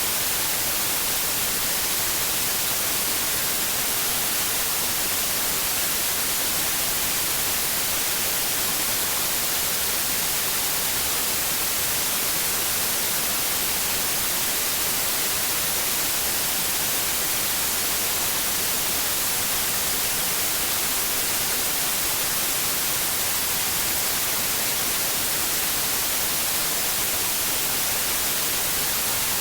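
White noise: a steady, even hiss with no changes, strongest in the high end.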